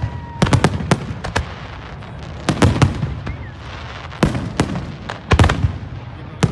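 Aerial firework shells bursting in a display: sharp bangs that come in quick clusters of two to four, a fresh cluster about every second, with a noisy haze of bursting stars between them.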